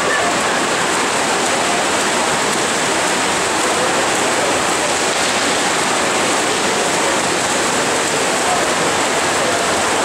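Steady, echoing wash of noise in an indoor swimming hall during a backstroke race: swimmers splashing and spectators shouting blend together, with a few faint shouts standing out.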